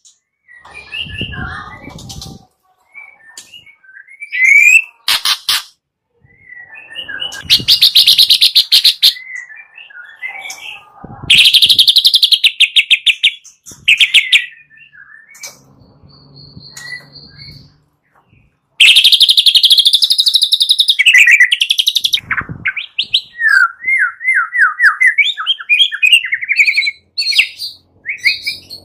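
White-rumped shama (murai batu) singing varied whistled phrases, broken by loud bursts of fast rattling notes.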